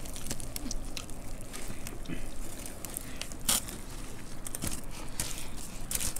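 People eating a dry snack mix of puffed rice, sev and crisp puri by hand, with close-up crunching and chewing and the crackle of fingers working through the mixture. One louder crunch comes about three and a half seconds in.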